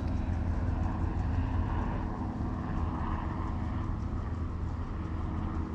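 An engine running steadily: a low, even drone.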